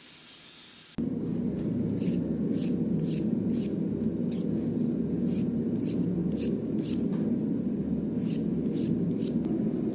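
Sanding a small forged steel punch smooth: a steady low rush that starts suddenly about a second in, with short rasping strokes on top in irregular clusters.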